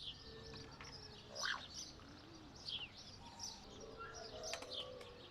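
A series of short, high bird-like chirps and whistled calls, several sweeping down in pitch, with a louder rising call about a second and a half in.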